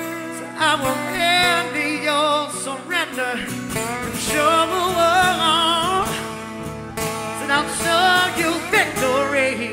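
Pop song playing: a singer holds long, wavering notes over a steady instrumental backing.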